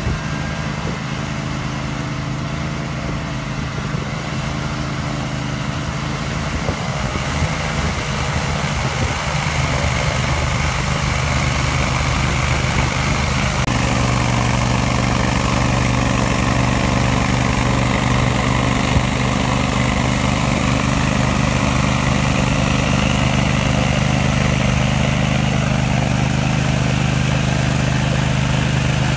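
Garden tractor's small engine running steadily under load while driving a front-mounted snowblower that throws snow. About halfway through the engine note shifts and gets a little louder and steadier.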